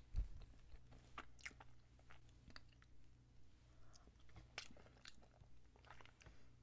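Close-miked chewing of a soft glazed donut, with short wet mouth clicks and smacks. A low thump about a quarter second in.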